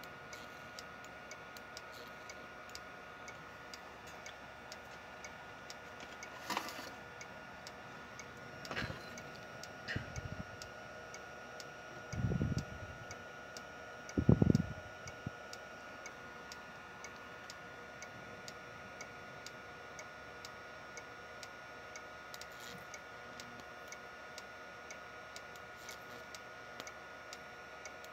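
Steady fast ticking with a faint steady whine from a homemade flyback transformer circuit running on the bench. A few short knocks and thumps, the loudest about halfway through, come as a plastic ruler is handled at the coil.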